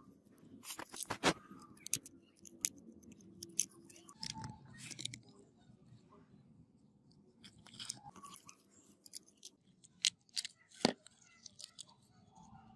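Small clicks and scrapes of plastic and metal parts being handled while a rusty angle grinder's carbon-brush holder and wiring are taken apart. The sharpest clicks come about a second in and twice near eleven seconds.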